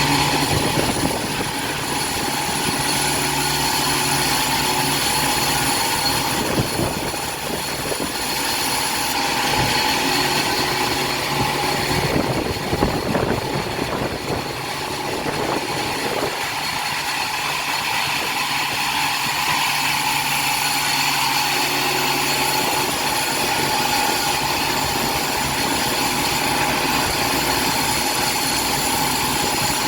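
Sawmill machinery running: a steady mechanical hum with held whining tones, turning rougher and noisier for a few seconds about halfway through.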